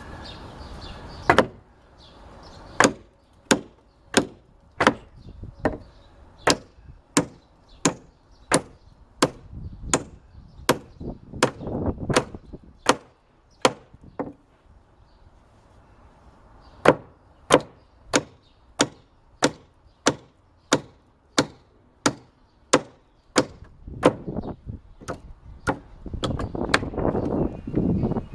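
Hammer striking into wood: a steady run of sharp blows, about three every two seconds, with a short pause around the middle.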